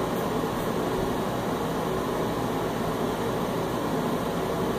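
Steady low cabin noise inside a parked car, even and unbroken, with no distinct knocks or events.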